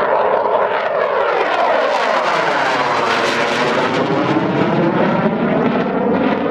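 JAS 39 Gripen fighter's single Volvo RM12 turbofan jet engine, loud and steady as the jet flies past overhead. The sound has a sweeping, phasing quality that turns about three seconds in as the jet passes closest.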